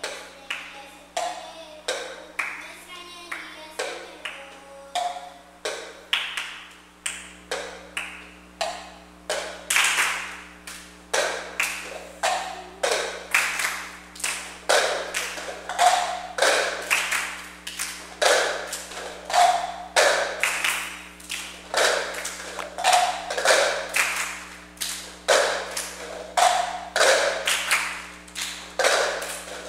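Children playing a cup-game rhythm: plastic cups tapped, slapped and set down on a tiled floor, mixed with hand claps, in a repeating pattern. The strokes grow louder about ten seconds in.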